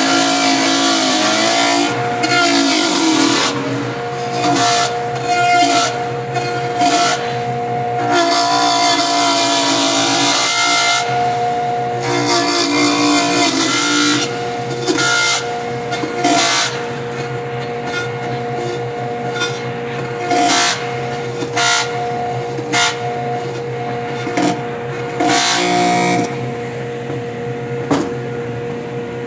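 Table saw running while its blade cuts a hand hold into the side of an assembled pine hive body guided on a ramp jig. The motor's steady whine runs throughout under a rougher cutting noise that swells and eases many times as the box is worked along. The cutting stops about three seconds before the end, leaving the saw running free.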